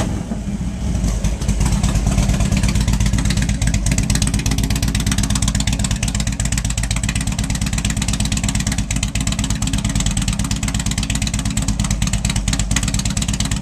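2006 Harley-Davidson Road King's fuel-injected Twin Cam 88 V-twin idling steadily through fishtail mufflers, settled down off its fast idle.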